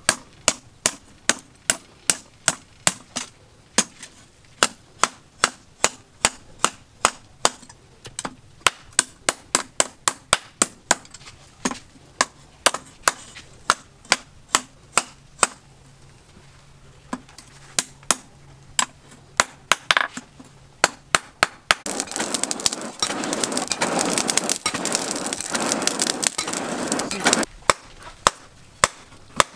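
Hand hammer striking red-hot steel prongs on a steel stake anvil: sharp metallic blows about two a second. The hammering breaks off a little past the two-thirds mark for about five seconds of hissing noise, then starts again.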